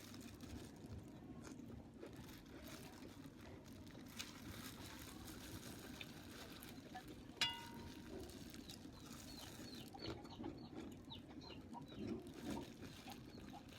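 Faint eating sounds: small clicks and smacks of chewing, busier in the last few seconds, with one sharp ringing clink, like a utensil striking a dish, about seven and a half seconds in.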